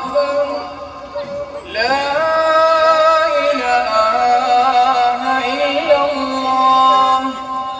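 Music with singing: held, sustained notes, with a voice or melody sliding up in pitch about two seconds in.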